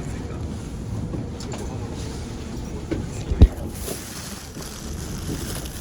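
Keikyu Main Line train running, heard inside the car: a steady low rumble, with one sharp thud about three and a half seconds in.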